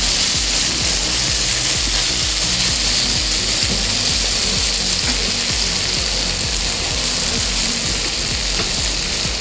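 Butter and meat juices sizzling steadily in a cast-iron griddle pan over a gas flame as a rolled, stuffed beef roast stands on its cut end to be seared, sealing that edge.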